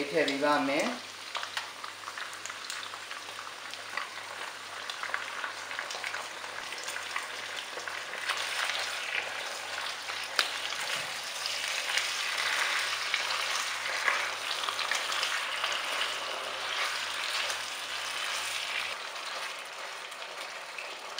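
Sliced pork stir-frying in a hot nonstick wok with the sauce just added: a steady sizzle, with a spatula scraping and tapping in the pan. The sizzle grows louder about eight seconds in.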